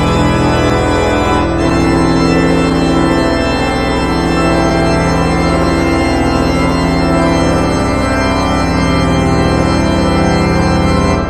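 Organ music playing long held chords, with a change of chord about a second and a half in.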